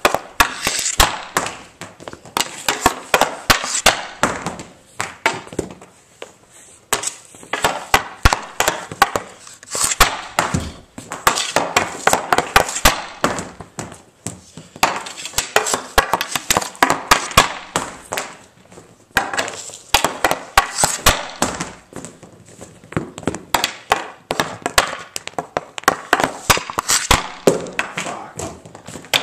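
Hockey pucks being shot off a TPS R8 stick on a concrete floor: a long run of sharp clacks and cracks as the blade slaps the concrete and strikes the puck and the pucks bang into the concrete wall, coming in clusters with short gaps.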